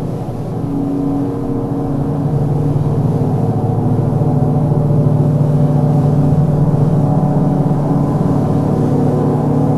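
Space ambient music: layered, sustained low drone tones with a resonant, gong-like ring, holding steady and swelling slightly a few seconds in.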